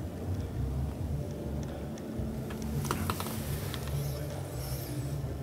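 Steady low background hum of a large indoor hall, with a few light clicks and handling taps about three seconds in.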